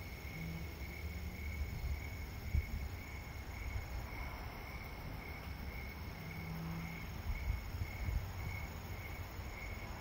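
A steady high chirp of crickets, pulsing evenly, over a low rumble of distant city traffic, with a couple of soft pops from a small wood fire burning in a kettle grill.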